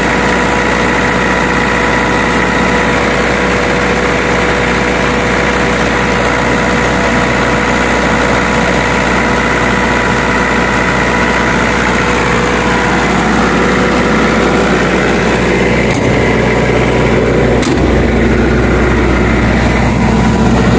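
Reconditioned diesel engine of a Denyo generator set running steadily at raised speed, with a steady whine over the engine note. The tone changes about two-thirds through, the low rumble growing stronger, and two light knocks come near the end.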